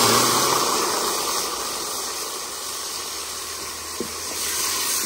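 Hot oil and fried onions sizzling hard in an aluminium cooking pot, the hiss loudest at first and slowly dying down.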